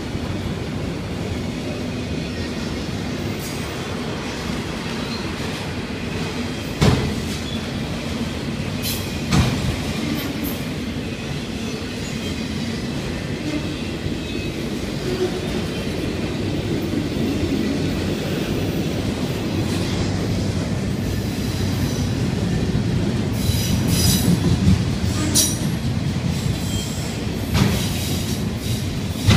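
Autorack freight cars of a CSX train rolling past at close range: a steady rumble of steel wheels on the rails, broken by a few sharp clanks, with some wheel squeal and a cluster of clanks near the end.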